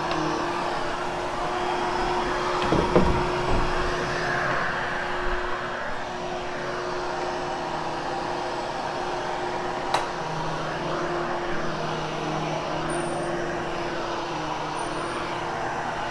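Hoover HushTone vacuum cleaner running steadily over carpet, with a few knocks about three seconds in and a single sharp click about ten seconds in.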